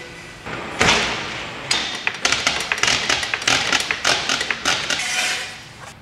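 Hydraulic floor jack being worked by its long handle to lift a car: a loud knock about a second in, then a run of clicks and knocks with each stroke of the handle.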